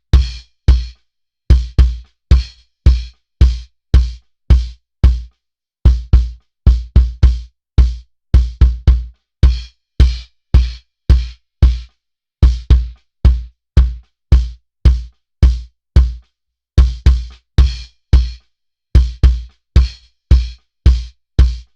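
Kick drum played alone, picked up by a microphone inside the drum: a run of short hits in an uneven pattern of single and doubled strokes, each a deep low thump with a brief beater click on top, separated by silence.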